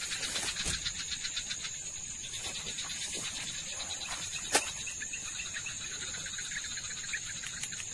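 Night chorus of crickets and other insects: a steady high-pitched buzz with rapid, even pulsing chirps. One sharp click stands out about four and a half seconds in.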